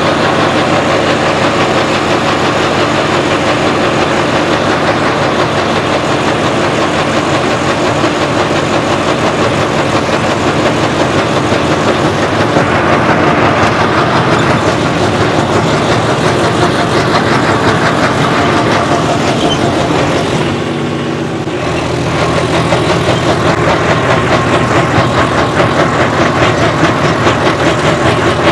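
Turbo-diesel engine of a John Deere 5405 4x4 tractor with a modified turbo and diesel pump, running hard under heavy load as it pulls ploughs through hard ground without the rpm dropping. The engine sound eases briefly about twenty seconds in, then picks up again.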